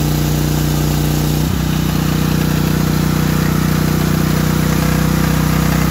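Generac MegaForce 6500 portable generator's engine running steadily under an electric heater load, its pitch dipping briefly about a second and a half in.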